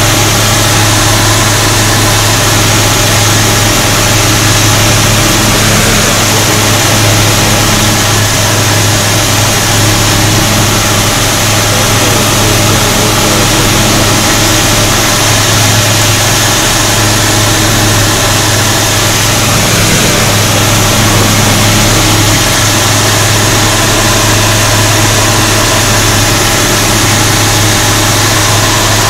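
A light aircraft's engine and propeller droning steadily, heard from inside the cockpit, with a strong low hum and no change in pitch.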